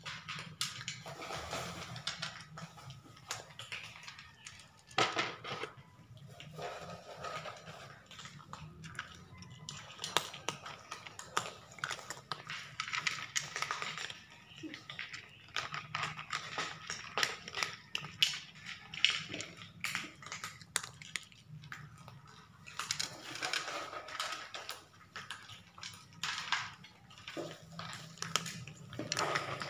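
Several cats eating crunchy dry treats from plates on a tile floor: irregular crunching, with clicks and knocks of the plates and tray on the tiles.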